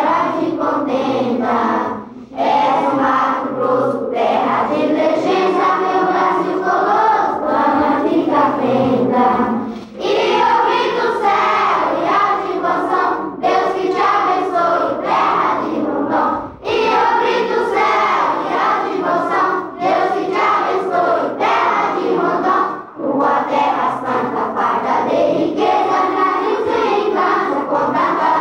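A choir singing in phrases, with short breaths between them every few seconds.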